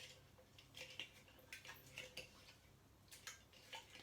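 A stick stirring water with flowers and a leaf in a small container: faint, irregular light taps and swishes, several a second.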